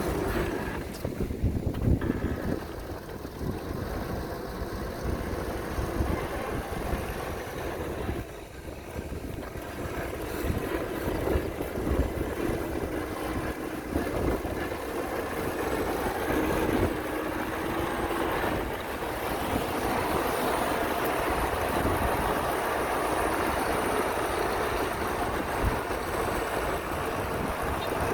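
Diesel engines of heavy earthmoving machinery running: a steady rumble with a faint whine that wavers in pitch.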